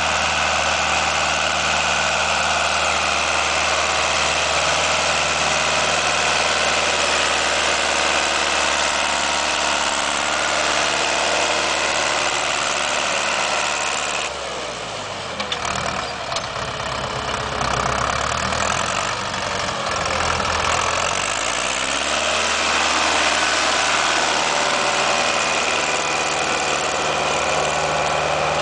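Ursus C-360 tractor's four-cylinder diesel engine running steadily under load, pulling a disc harrow through ploughed soil. It passes close by about halfway through, its tone shifting as it goes past, then draws away.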